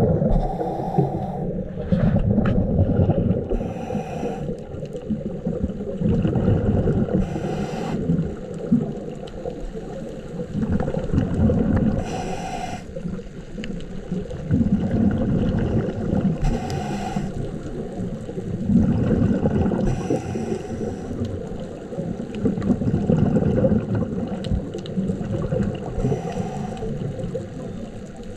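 Scuba regulator breathing heard underwater: a short hiss on each inhale and bubbling from the exhaled air, repeating about every four seconds over steady low water noise.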